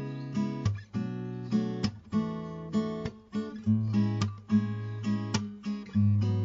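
Background music: acoustic guitar strummed in a steady rhythm, chords struck several times a second.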